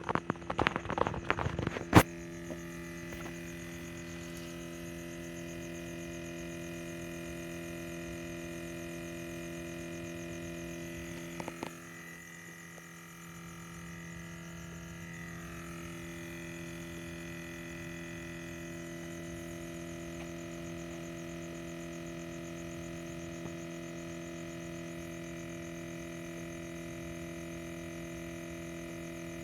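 Steady buzzing hum from the rear section of a Scion tC with the engine off, made of several steady tones; it dips briefly about twelve seconds in and then carries on. A few knocks and a sharp click sound in the first two seconds.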